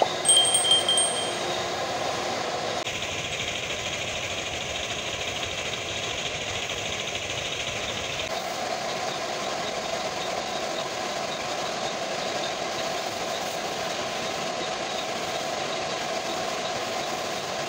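Air compressor and compressed-air spray gun running, a steady mechanical hum with an airy hiss, its character shifting slightly twice at cuts. Near the start a short, bright chime from an on-screen subscribe-button animation rings over it.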